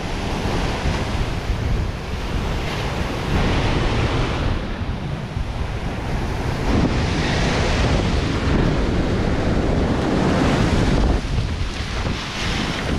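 Surf washing up the beach, swelling every few seconds, with wind buffeting the microphone.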